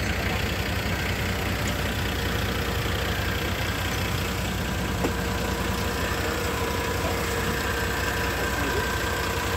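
A combustion engine running steadily at idle, an even low pulsing with a few faint steady tones above it.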